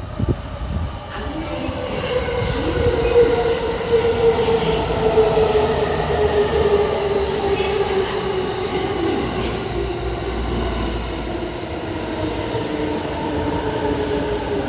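E217 series electric train braking into the platform: a loud rumble with a whine that falls slowly in pitch as it slows, and a few clicks of the wheels at first.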